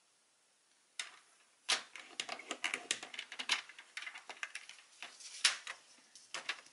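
Irregular run of sharp clicks, taps and rustling from a plastic paper trimmer and pink cardstock being handled while the card is scored all round, starting about a second in.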